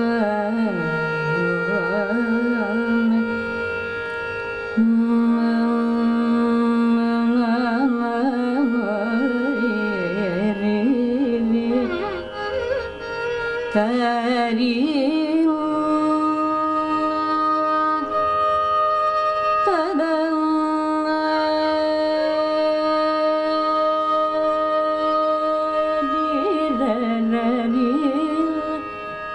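Carnatic classical vocal: a woman singing long held notes that break into wavering, gliding ornaments, with a violin following her melodic line.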